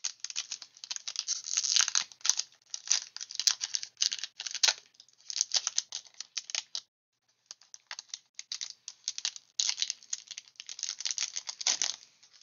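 The foil wrapper of a Pokémon TCG booster pack crinkling and crackling as it is torn open and handled. The sound comes in two spells with a short break about seven seconds in.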